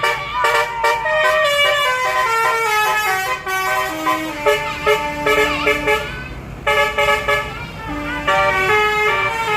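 Twelve-note basuri (telolet) musical air horn on a bus playing a melody, one held note after another. A steady low rumble runs underneath.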